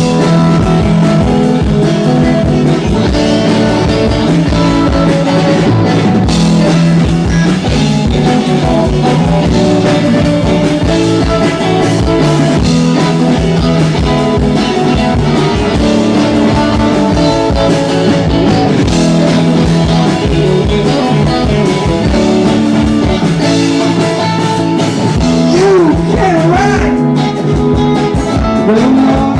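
Live rock band playing a song, with guitar and drums, loud and steady.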